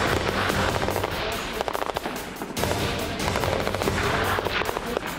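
Bursts of rapid automatic gunfire, cracking shots in quick runs with short breaks between them, over background music.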